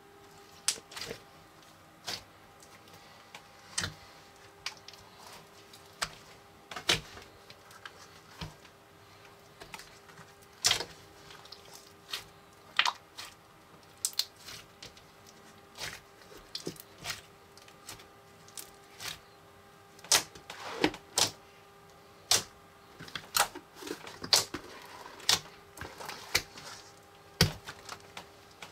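Foam bead slime being squeezed and stretched by hand, giving off irregular sharp pops and crackles, roughly one or two a second.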